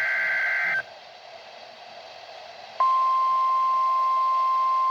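NOAA Weather Radio broadcast: the end of an EAS/SAME digital header burst, a two-pitch warbling data screech, cuts off about a second in. After a couple of seconds of faint radio hiss, the steady 1050 Hz weather radio warning alarm tone starts suddenly and holds, sounding as a weekly test.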